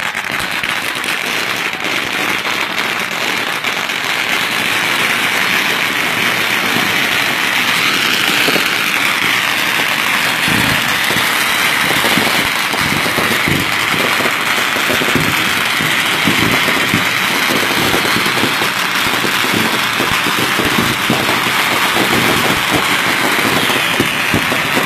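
Consumer fireworks going off close by: a dense, continuous crackle of firecrackers and spark-throwing fountains, with more frequent louder pops from about ten seconds in.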